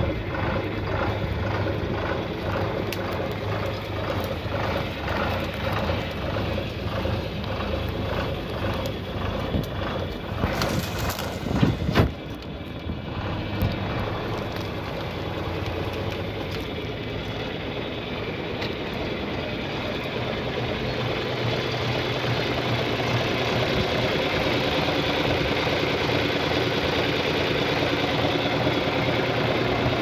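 John Deere 4240S tractor's six-cylinder diesel engine running steadily under load while pulling a mounted plough through the soil. About 11 seconds in there is a brief loud rush of noise, after which the engine drone settles and grows slightly louder toward the end.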